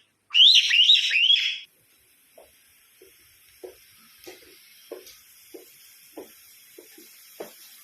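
A pet parrot gives a loud shrill call of four quick whistled notes, each sweeping up and down. After it comes a faint steady hiss with soft taps about every half second.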